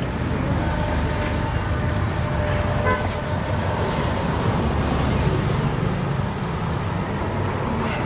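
Street traffic: motor scooters and cars passing on the road, a steady low rumble. A short tone sounds briefly about three seconds in.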